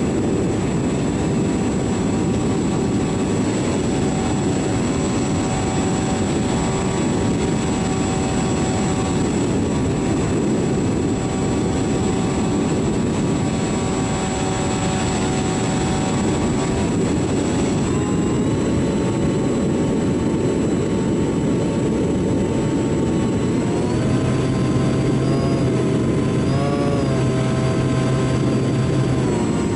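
Motor and propeller of a small radio-controlled airplane in flight, heard from a camera mounted on the plane, with a heavy rush of wind over the microphone. The motor's tone shifts with the throttle: it steps up about two-thirds of the way through, then wavers up and down near the end.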